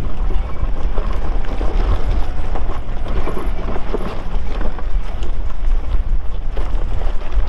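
Tyres of a lifted Nissan R50 Pathfinder crunching and knocking over loose rocks and gravel on a rocky trail, a dense run of irregular clacks over a steady low rumble.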